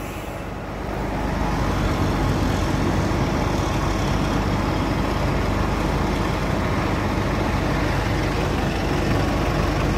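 Heavy truck's diesel engine running steadily as it pulls a lowbed trailer loaded with an excavator away across a dirt yard, getting a little louder over the first couple of seconds.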